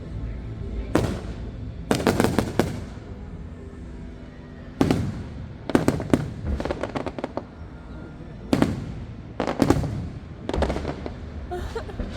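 Aerial fireworks bursting: a string of sharp booms about a second or two apart, some trailed by quick runs of crackling, with music playing underneath.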